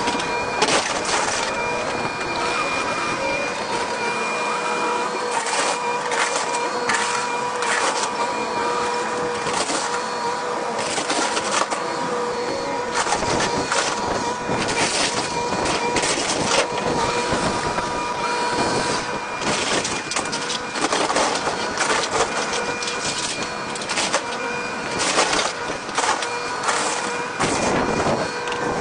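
Excavator demolishing a house: a steady machine whine runs under frequent irregular cracks, crunches and crashes of the structure breaking apart.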